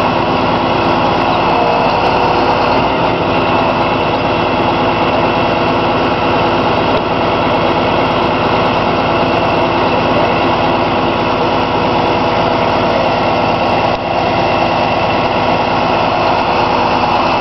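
Engine of a truck-mounted crane running steadily while it lowers a heavy load on chains, with a brief dip in level about fourteen seconds in.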